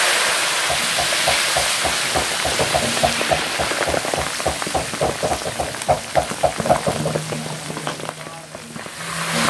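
Food frying in hot oil: a steady sizzle with fast crackling, easing off near the end.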